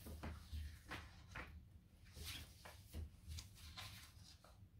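Near silence: a low steady hum with a scattering of faint rustles and soft clicks, as of small objects and packaging being handled.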